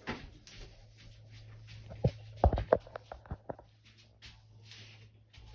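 A quick cluster of light knocks and taps, about two to three and a half seconds in, over a steady low hum.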